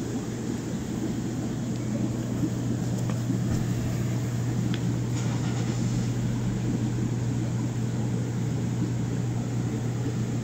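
Steady low hum over an even rumbling drone, the sound of a fish store's aquarium pumps and filtration running continuously.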